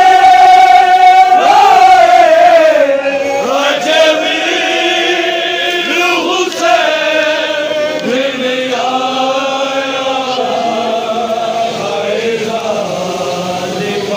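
Group of men chanting a noha, a Shia mourning lament, together in long, drawn-out notes. It is loudest over the first three seconds and a little softer after.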